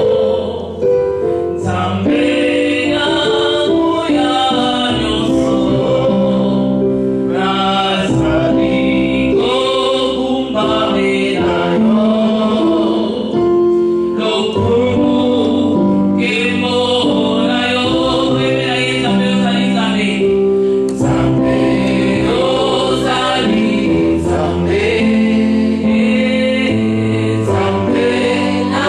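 Gospel worship choir singing in harmony over held low backing notes.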